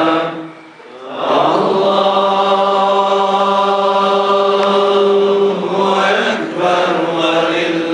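Male voice chanting Islamic devotional verses into a microphone in long held notes. There is a breath break about a second in and a short dip near the end.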